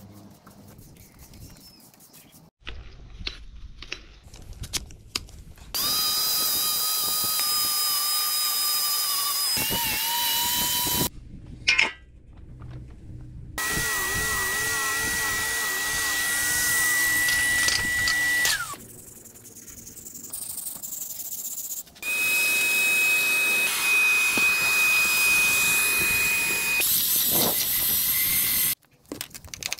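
Power tools run in three separate stretches, each a steady motor whine that starts and stops abruptly. Near the end it is an electric drill with a paddle mixer stirring a mix in a bucket; the middle run comes while the concrete slab is being worked with a tool hooked to a shop vacuum.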